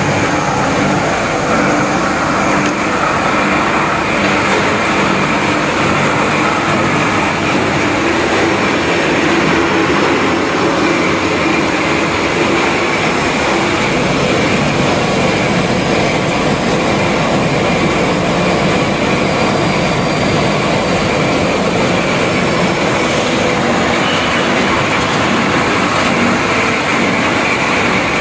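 BS-D70 mini copper cable wire granulator running during a test: a loud, steady mechanical din from the crusher, conveyor and air separator as cable is ground into copper and plastic granules.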